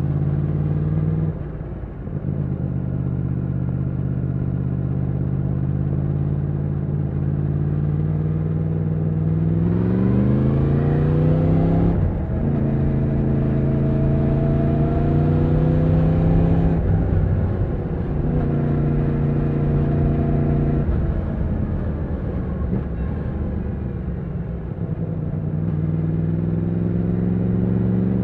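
2020 Yamaha MT-10's crossplane inline-four engine under way. It cruises steadily, then accelerates with a rising note that breaks off suddenly for a quickshifter upshift and carries on at a higher pitch. It eases down and picks up again near the end.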